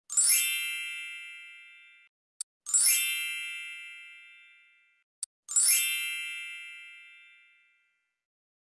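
Three bright, magical sparkle-chime sound effects about two and a half seconds apart, each a ringing ding of many high tones that fades over about two seconds. A faint click comes just before each chime.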